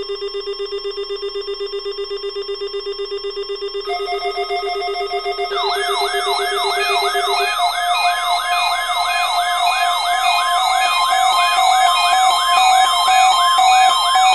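Electronic weather-alert alarm tones: a pulsing low beep under several steady higher tones, joined about five seconds in by a rising siren-like wail that repeats about twice a second. The low beep drops out partway through.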